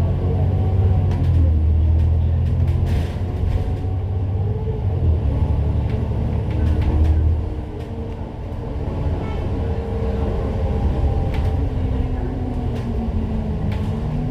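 City bus under way: its engine and drivetrain rumble steadily, with a faint whine that rises and falls in pitch and scattered rattles and clicks from the body. The engine noise drops away about eight seconds in, then picks up again.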